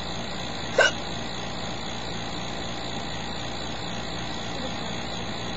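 A single short, sharp hiccup from a woman about a second in, over a steady background hum.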